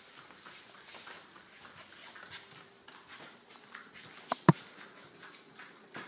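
Footsteps of a dog wearing Pawz rubber booties: soft scattered taps on the floor, with two sharp knocks close together about four and a half seconds in.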